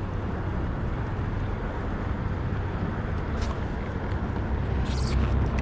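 Steady wind rumble on the microphone over open water from a kayak under way, with two brief crackles, about three and a half seconds and five seconds in.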